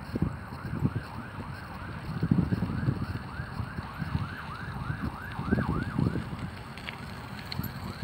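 A siren yelping, a fast rising-and-falling wail repeating about three times a second. Strong wind gusts buffet the microphone underneath, loudest about two seconds in and again near five and a half seconds.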